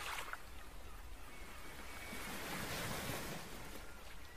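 Faint pond ambience: a steady soft hiss of wind and water, with a faint thin whistle about a second and a half in.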